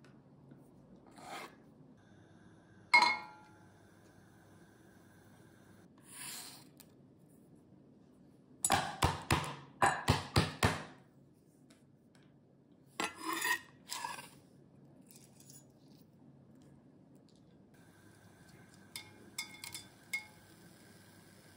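Flat of a chef's knife knocking down on cardamom pods on a wooden cutting board to crack them: one sharp knock, then a quick run of knocks, then a few more. Near the end come light clicks of whole spices dropped into an empty stainless steel saucepan.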